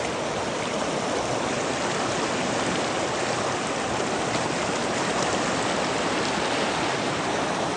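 A stream running steadily: an even, unbroken rush of flowing water.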